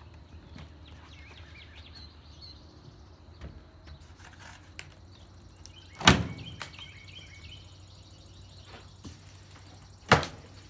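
Two sharp knocks about four seconds apart, from strapped cardboard shipping boxes being opened and handled, over birds chirping in the background.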